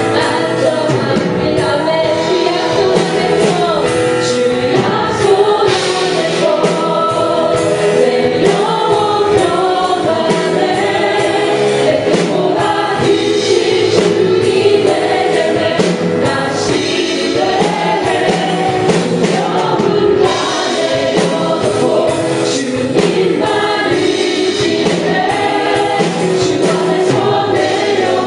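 Contemporary Christian worship song sung by a congregation and praise team together, with band accompaniment, continuous and loud.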